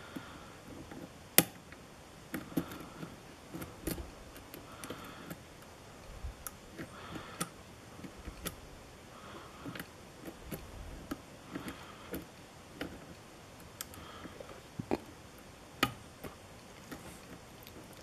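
Irregular faint metallic clicks and ticks of a hook pick and tension wrench working the pin stacks of a brass lock cylinder, with sharper clicks about a second and a half in and near the end. The lock is stuck in a false set, with pins setting and the plug giving counter-rotation.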